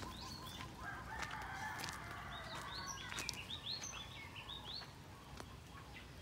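A rooster crowing faintly, one long call starting about a second in, with a small bird giving a quick run of short chirps over the end of it.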